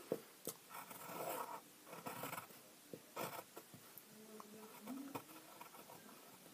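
Pencil scratching on paper in short, light drawing strokes, with a few sharp little taps.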